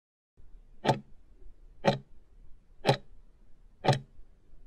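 Ticking clock sound effect of a countdown timer, one sharp tick each second, four ticks in all.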